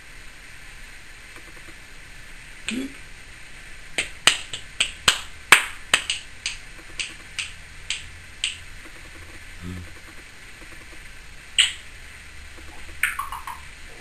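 Timneh African grey parrot making a run of about fifteen sharp clicks over four seconds, the spacing widening toward the end, with single clicks before and after and a short falling whistle near the end.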